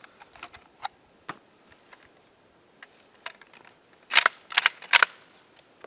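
Sporterized Lee-Enfield bolt-action rifle being handled: light clicks and rattles of the sling and action, then three sharp metal clacks in quick succession about four seconds in as the bolt is worked to chamber a round before firing.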